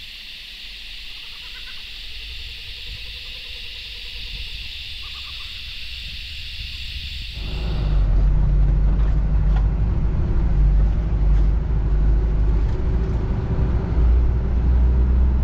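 A steady high insect drone with a few short bird chirps. About seven seconds in it gives way to the Isuzu NPS 4x4 truck's diesel engine droning low and steady as it drives a narrow sand track, heard from the cab, with occasional knocks and rattles.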